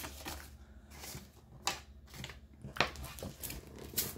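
Paper dollar bills being handled and put down: light rustling of the bills, with a few sharp clicks or snaps spread through.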